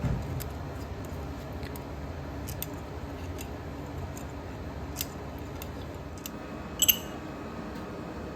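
Small metal parts and tools handled on a workbench: scattered light clicks and taps, with one sharper metallic clink about seven seconds in, over a steady low shop hum.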